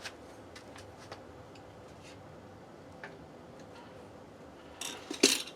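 Metal tire levers being handled against a motorcycle wheel rim: a few faint ticks and clicks, then a loud metal clank and clatter near the end.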